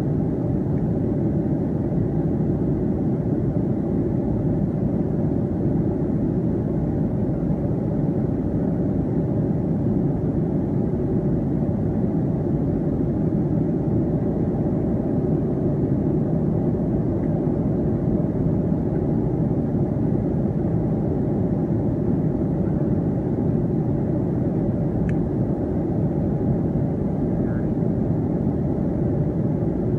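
Steady cabin noise of a jet airliner in cruise: a constant drone of engine and airflow, heard from a window seat, with a faint click about 25 seconds in.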